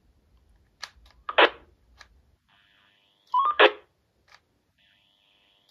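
The first, classic roger beep of a President George II CB radio: a few clicks as the radio is keyed, then a short beep with a burst of radio hiss and crackle about three and a half seconds in, and the same again at the very end.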